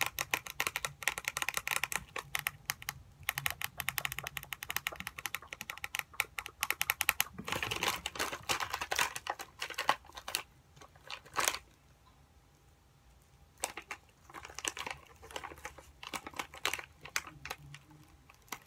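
Soft plastic pack of face wipes crinkling and crackling in the hands, rapid close-up crackles with a sharp snap partway through and a quieter stretch after it, as a wipe is pulled out and unfolded.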